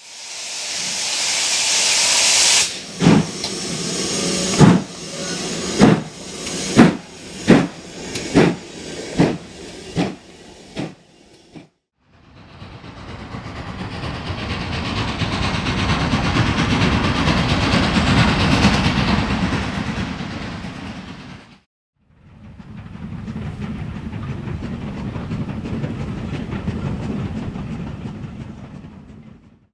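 GWR Grange-class 4-6-0 steam locomotive starting away with its cylinder drain cocks open: a steady hiss of steam, then heavy single exhaust beats that come quicker and quicker as it gets moving. After that, steam-hauled trains are heard working by, each exhaust a continuous rush that swells and fades.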